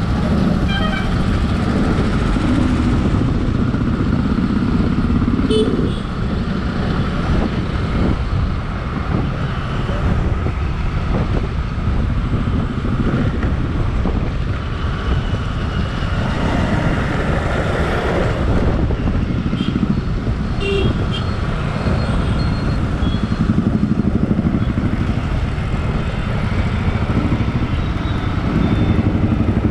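Steady motorcycle riding noise in dense city traffic: the bike's running engine and rushing noise heard from the moving motorcycle, with surrounding motorbikes and autorickshaws and a few short high beeps from other vehicles.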